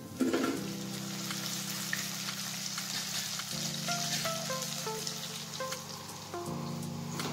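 Sliced besan gatte deep-frying in hot oil in a kadai: a steady sizzle. A short knock of the slotted steel spatula against the steel plate comes just at the start.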